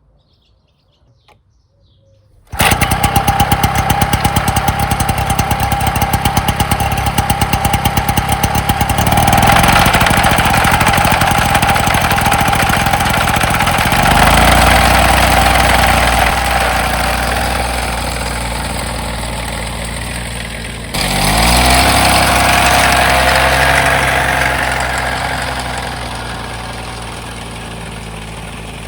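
Terra Vari lawn mower's small engine firing up suddenly and running after its recoil starter has been repaired. Its note shifts a few times, with a short break about two-thirds of the way through, and it eases down near the end.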